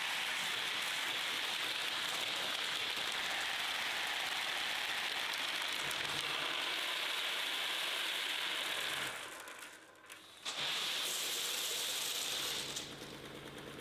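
Marbles rattling and clattering through the 3D-printed marble clock's plastic tracks and digit display as it empties and refills its digits: a dense, continuous clatter that fades about nine seconds in, stops briefly, then starts again and fades near the end.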